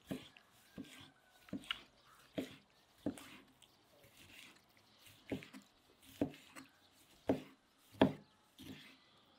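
Chef's knife chopping raw liver on a wooden cutting board: a series of knocks as the blade meets the board, roughly one a second, with a short pause midway and the loudest strike near the end.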